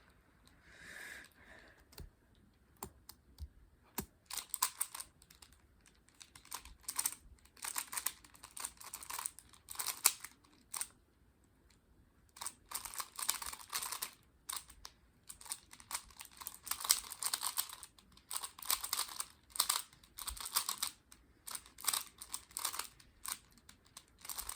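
A magnetic 3x3 Rubik's cube being turned fast during a speedsolve: bursts of rapid plastic clicking and clacking as the layers snap round, with short pauses between bursts.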